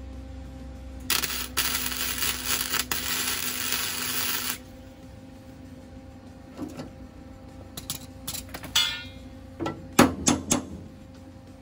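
Flux-core (Innershield) wire-feed welder arc crackling and sputtering for about three and a half seconds as a weld is laid on the steel rock slider. Then come a few scrapes and, near the end, three quick strokes of a wire brush scrubbing the weld bead.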